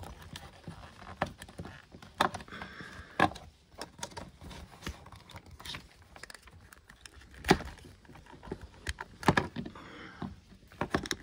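Scattered clicks, knocks and rattles of a diagnostic interface cable and its plug being handled and pushed into a vehicle diagnostic socket, with the sharpest knocks in the second half.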